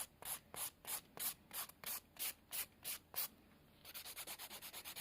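Nail file rasping back and forth over a sculpted artificial nail, taking down a too-prominent apex: about three strokes a second, a brief pause a little after three seconds in, then quicker, lighter strokes.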